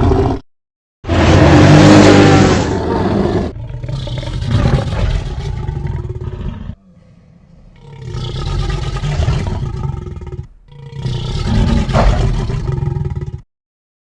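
Mixed sound-effect Spinosaurus roars, built from film and documentary dinosaur sounds. A string of long roars follows one another with short breaks; the loudest comes about a second in, and the last cuts off sharply shortly before the end.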